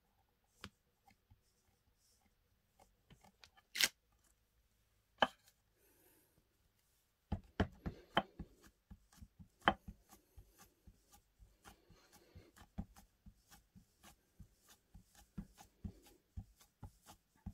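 Versamark ink pad dabbed again and again onto an acrylic-mounted rubber stamp to re-ink it: a quick run of light taps and clicks, several a second, from about seven seconds in. Before that, a few scattered sharper knocks as the stamp block and card are handled.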